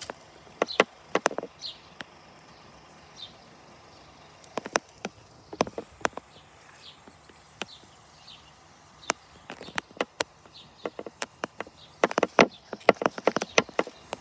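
Irregular sharp clicks and taps, coming in a quick cluster near the end, with a few short, high, falling bird chirps in between.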